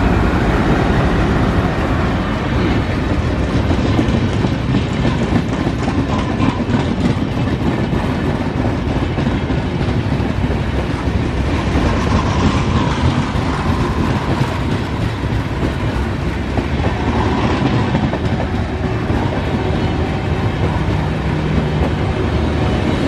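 Passenger train rolling past, its coach wheels clacking over the rail joints in a steady run of clicks over a continuous rumble.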